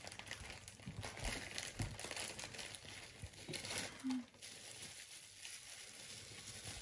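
Plastic wrapping crinkling as a Funko Soda figure is pulled out of its plastic bag and bubble wrap by hand. The crinkling is busiest in the first four seconds and lighter after.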